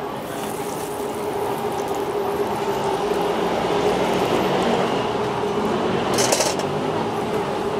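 Street traffic noise with a steady hum, swelling over the first few seconds as a motorbike comes close, and a short sharp hiss about six seconds in.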